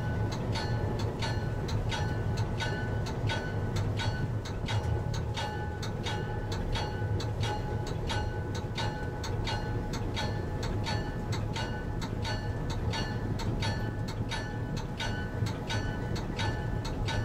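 Moving locomotive heard from its cab: a steady low engine hum under the bell, which rings with an even metallic stroke about three times a second.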